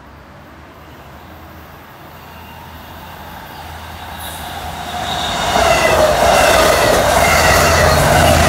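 Long Island Rail Road diesel push-pull train of bi-level passenger coaches approaching and passing at speed. Its rumble and wheel noise grow steadily louder until about five and a half seconds in, then stay loud as the coaches go by, with faint high steady tones over the rumble.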